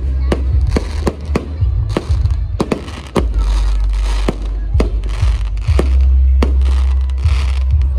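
Aerial fireworks going off in a steady barrage: sharp bangs about two a second, with crackling between them and a deep rumble underneath.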